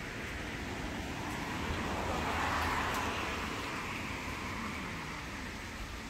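A passing vehicle: a rush of road noise that swells about two seconds in and fades away again.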